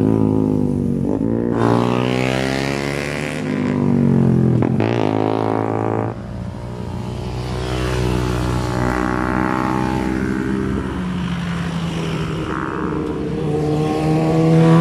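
Motorcycle engines riding past one after another through a curve, their pitch rising and falling as riders roll on the throttle and shift. The sound changes abruptly about six seconds in, and the engines swell again near the end.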